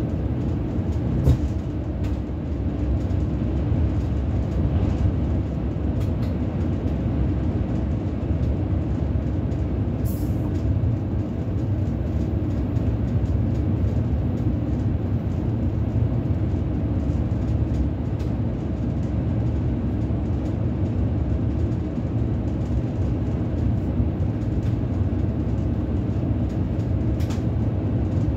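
Bombardier Twindexx Swiss Express double-deck train running at speed, heard from the driver's cab: a steady rumble of the running gear on the rails. A few short sharp clicks come about a second in, about ten seconds in and near the end.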